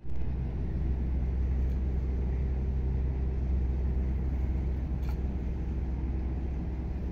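Marine engine running steadily: a low rumble with a constant hum, unchanging throughout. A faint click about five seconds in.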